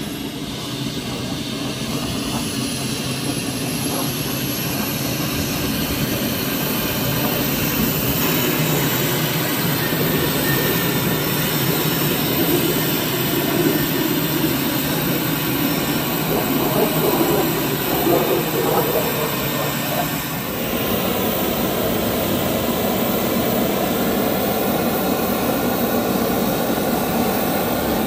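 Lockheed Martin F-35A Lightning II's jet engine running at ground idle with the jet standing still: a steady jet roar with a thin high whine on top that rises slightly a few seconds in.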